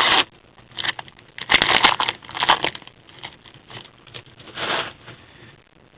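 Trading cards and their plastic packaging being handled, with irregular bursts of rustling and crinkling, the busiest stretch about one and a half to three seconds in.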